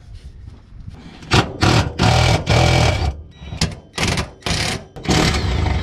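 Cordless power tool with a 14 mm socket running in about six short bursts, undoing the bolts of a Fiesta ST's exhaust centre brace.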